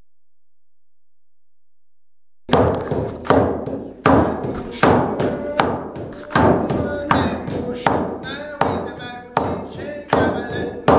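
Silence, then about two and a half seconds in a music track starts abruptly, with a loud steady beat of about four hits every three seconds and pitched notes over it.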